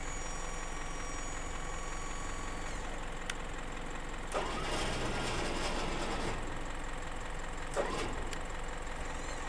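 Isuzu NRR diesel truck running steadily while its Switch-N-Go hoist winches a steel drop box back up onto the truck. There is a sharp click about three seconds in, a louder stretch of mechanical noise from about four and a half to six seconds, and a short knock near eight seconds.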